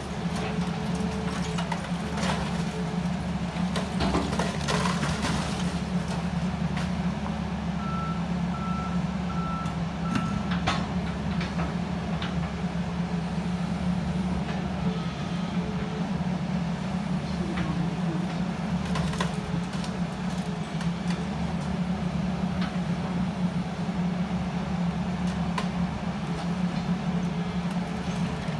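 Diesel engine of a SANY hydraulic excavator running steadily under load as its bucket and thumb tear into a brick wall, with crumbling, clattering brick a few times. A row of short electronic beeps sounds around 8 to 10 seconds in.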